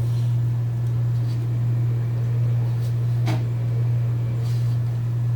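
Mondial Pro 55 wall fan's rewound electric motor running, a steady low hum, with one faint click about three seconds in.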